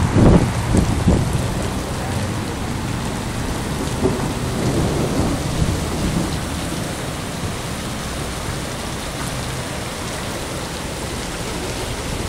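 Heavy rain pouring onto a wet asphalt parking lot, a steady hiss of downpour, with a low rumble in the first second or two.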